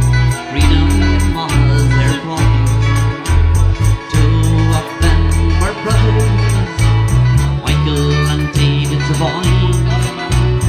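Live band performance of an Irish rebel ballad, with a strong bass line of held notes changing every second or so under a singing voice.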